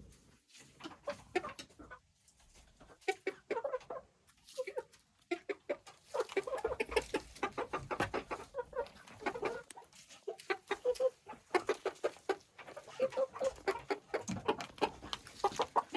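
Backyard chickens clucking softly, with a rapid patter of sharp taps that thickens after a few seconds.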